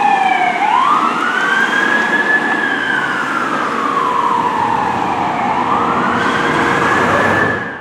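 Fire truck siren on a Boston Fire Department heavy rescue truck sounding a slow wail. Its pitch dips about half a second in, rises, sinks slowly for a few seconds, then climbs again near the end, over the rumble of the truck and road.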